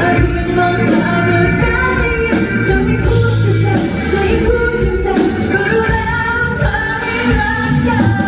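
Live pop-rock song with a band and a woman singing, loud and continuous.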